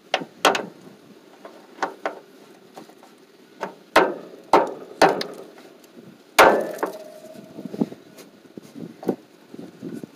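Metal tools knocking and clanking as a ratchet with a socket extension is worked on a stuck bolt: a dozen or so irregular sharp knocks. The loudest clank, about six seconds in, rings briefly.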